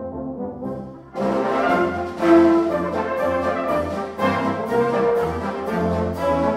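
A brass band playing a slow piece in held chords. It drops to a soft passage at first, then comes back in fuller about a second in.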